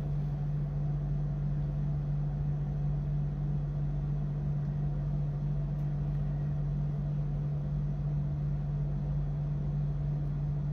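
A steady low hum on one unchanging pitch.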